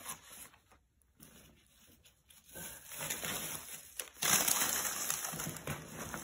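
Thin plastic shopping bag rustling and crinkling as it is handled, with softer rustles of packing at first and the loudest crinkling from about four seconds in.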